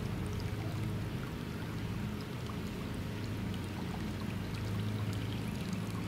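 Water pouring steadily into an above-ground pool from the return outlet of a solar pool heater, pushed by a 500 gph 12-volt bilge pump.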